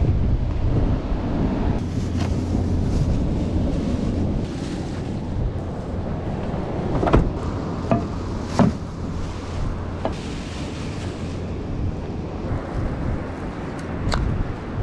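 Wind buffeting the microphone in a steady low rumble, with several sharp knocks or clatters in the second half.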